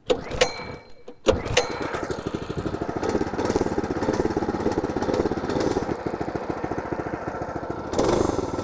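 Mini bike's 212cc single-cylinder four-stroke engine being pull-started: a few clicks, then it catches about a second in and runs steadily with rapid even firing. It gets briefly louder near the end.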